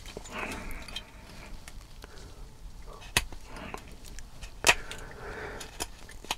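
A hobby knife blade shaving leftover sprue nubs off a hard plastic RC car chassis: short soft scraping strokes, with two sharp clicks about three and four and a half seconds in.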